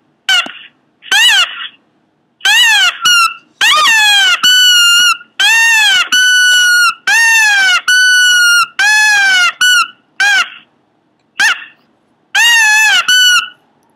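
Pomeranian giving a quick string of loud, high-pitched squeaky cries, each rising then falling in pitch. Some are short yelps and some are drawn out, with a longer pause between them about two-thirds of the way through.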